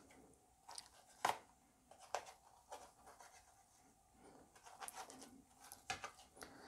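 Kitchen knife cutting an omelette into pieces on a ceramic plate: a few faint scrapes and clicks of the blade against the plate, the sharpest about a second in.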